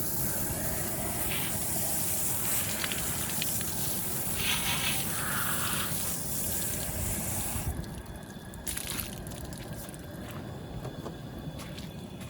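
Running water rinsing a whole processed chicken carcass, with a steady splashing flow that stops abruptly about two-thirds of the way through, followed by a few faint knocks of handling.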